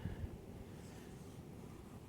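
Faint low rumble of blizzard wind with light hiss, and a couple of soft bumps about a quarter second in.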